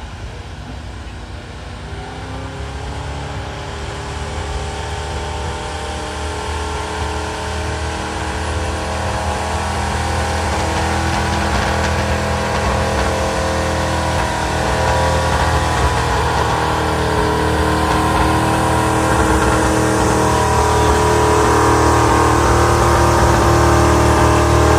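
Gasoline pickup truck engine running hard under heavy load as it drags a truck-pulling sled. The note is steady and grows louder as the truck comes nearer, rising a little in pitch near the end.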